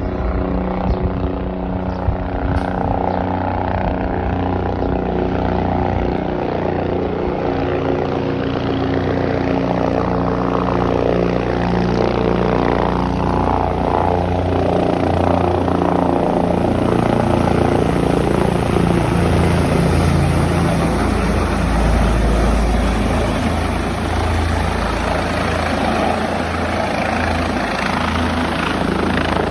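Helicopter's rotor and engine running as it comes in to land: a loud, steady drone of stacked tones that drift slowly in pitch, growing a little louder around the middle.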